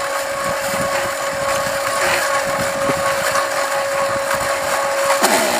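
SteppIR element housing unit's stepper motor running steadily with a constant whine, driving the sprockets and reel to feed the perforated copper tape out and lengthen the antenna element for 20 metres.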